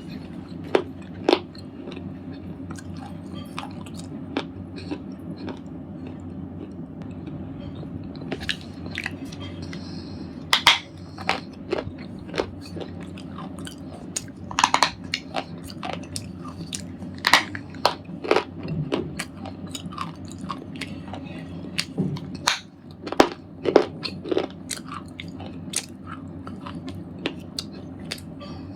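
Red slate ball being crunched: irregular sharp cracks and crumbles of the brittle slate, sparse at first and coming thicker from about eight seconds in, over a low steady hum.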